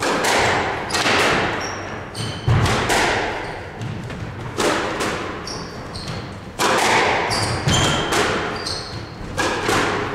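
Squash rally: rackets strike the ball and the ball smacks off the walls, sharp cracks coming every half second to a second, each ringing on in the enclosed court. Short high squeaks of shoes on the wooden floor come between the shots.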